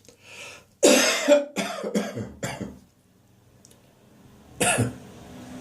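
A man's chesty catarrh cough: a quick breath in, then a run of about five hacking coughs, a pause, and one more cough near the end.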